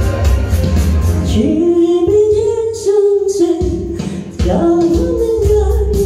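Pop song with a band backing track of bass and guitar; about a second and a half in a woman's voice comes in through a microphone, singing long held notes. The bass drops away while she sings and returns a little after four seconds in.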